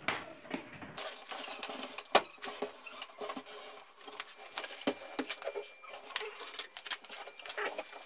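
Scattered light clicks, knocks and rustling as a front-loading washing machine is handled and turned round to reach its back panel, with one sharper knock about two seconds in.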